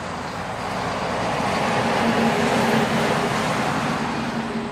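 Road noise heard inside a moving vehicle at highway speed: a steady rush of tyres and wind with a low engine hum, swelling to its loudest a couple of seconds in and then easing.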